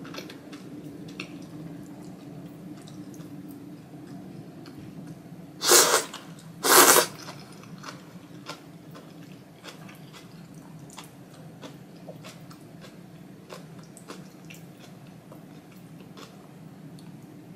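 Close-miked chewing of thick Jiro-style ramen noodles, with many small wet mouth clicks. About six seconds in come two short, loud slurps a second apart.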